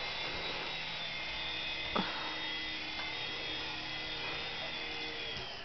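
Toy remote-control helicopter's small electric motors and rotors whirring with a steady whine in flight, then stopping near the end as it is set down. A single short tap about two seconds in.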